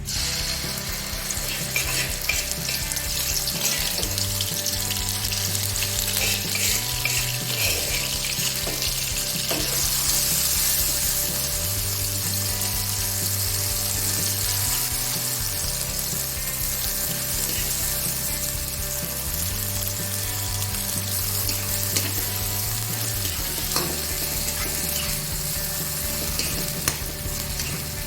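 Food sizzling steadily in hot oil in a pan, with a couple of light knocks.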